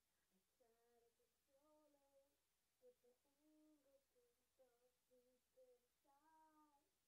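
Very faint humming of a slow tune in a woman's voice, with notes held and stepping up and down, barely above silence.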